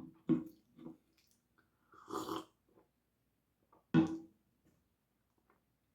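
A person drinking a fizzy hard iced tea: a few quick swallows, a breathy exhale about two seconds in, and a short throaty sound about four seconds in.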